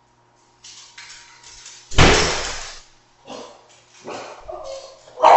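Dog barking: a few short, separate sounds, the loudest a sudden one about two seconds in and another loud one at the end.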